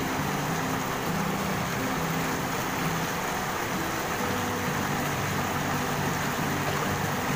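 Shallow stream rushing over rocks, a steady hiss of running water. Underneath it runs a low background tune of held notes that change pitch every half second or so.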